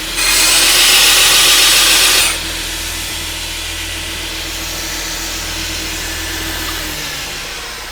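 Belt grinder with a coarse 36-grit belt grinding a steel axe head: a loud, hissing grind for about two seconds as the blade is pressed to the belt, then the machine running with lighter contact. The motor hum stops near the end and the sound dies away as the grinder winds down.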